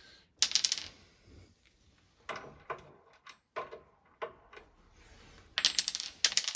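Cordless impact wrench hammering in two short bursts, about half a second in and again near the end, pre-tightening the 17 mm nut of a steering tie-rod end. A few light metallic clicks of tool handling come in between.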